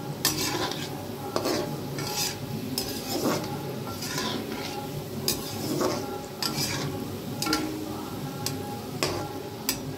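Gulab jamun balls deep-frying in hot oil in a kadhai, sizzling steadily, while a spatula stirs them, clicking and scraping against the pan every half second to a second.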